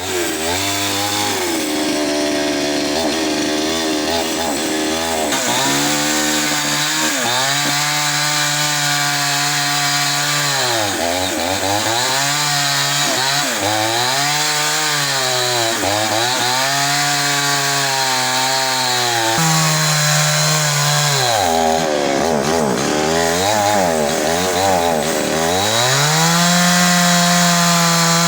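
Two-stroke chainsaw cutting through a fallen tree. The engine holds at full speed, then drops and climbs back again and again as it works through the wood, and stays at full speed near the end.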